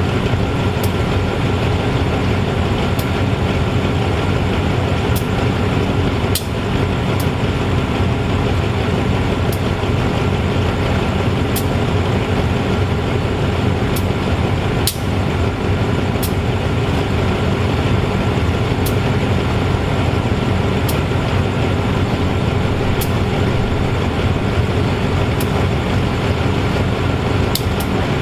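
GE-A class diesel-electric locomotive's diesel engine idling steadily while the locomotive stands, with faint light ticks about once a second.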